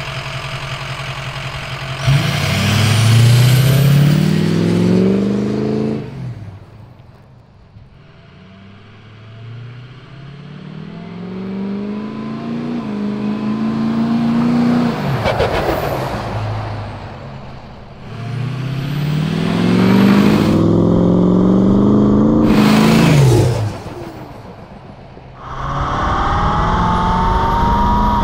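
Ford Excursion's turbodiesel V8 accelerating hard three times, its note climbing in pitch through each pull with a thin turbo whistle rising alongside, then falling away sharply. Near the end it runs steadily with the whistle still audible.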